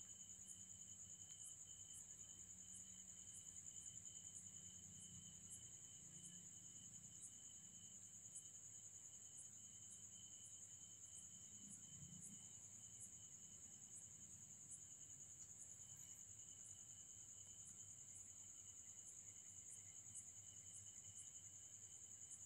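Faint, steady high-pitched insect trilling, cricket-like, with regular faint ticks about twice a second.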